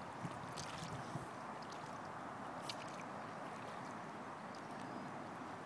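Water gurgling and lapping against a kayak's hull as it moves along, a steady rush with small splashy ticks scattered through it.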